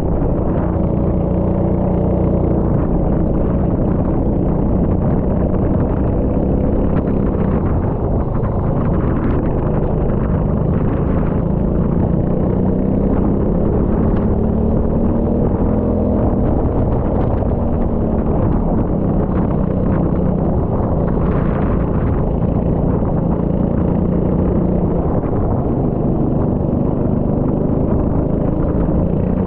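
Rental kart engine running steadily under way, its pitch rising and falling as the throttle is worked through the corners.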